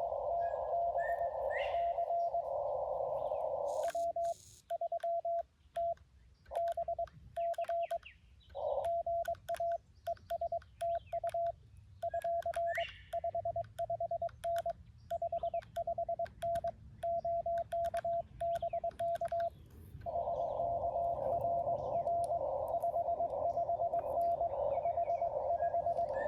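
Xiegu G90 transceiver in CW mode: receiver hiss through the narrow CW filter with a weak incoming Morse signal in it, then, about four seconds in, the operator's own Morse sending as a keyed single-pitch sidetone with faint clicks, for about sixteen seconds. After that comes receiver hiss again with the other station's faint Morse reply. A bird chirps briefly a few times.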